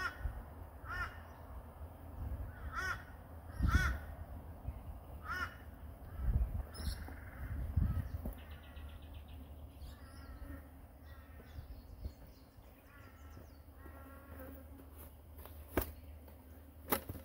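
A crow cawing repeatedly, five or six caws over the first five seconds or so, followed by smaller birds chirping and trilling. A few low thumps and two sharp clicks near the end.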